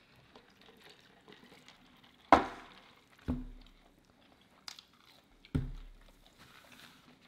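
Close-miked eating sounds: a sandwich being handled and bitten, with a few sharp knocks, the loudest about two seconds in and two more a second or so apart after it.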